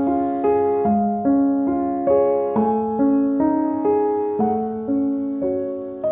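Background piano music, with notes struck about twice a second, each ringing and fading.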